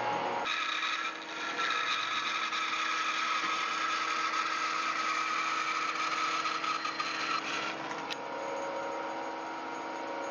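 Woodworking power tool running and cutting into solid wood with a steady whine; the sound shifts and eases slightly about eight seconds in.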